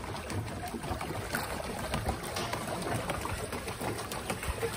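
Water churning and splashing steadily from a pedal boat's paddle wheel as it is pedaled along.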